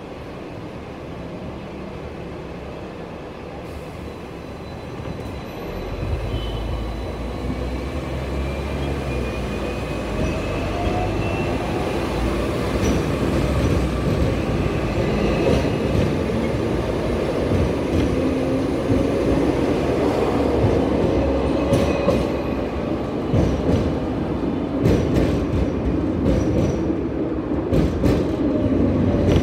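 Hong Kong electric double-decker tram pulling away and picking up speed: its traction motors whine in a slowly rising pitch over the rumble of steel wheels on the rails. It starts about five seconds in and grows louder, with a run of sharp clacks from the wheels in the last several seconds.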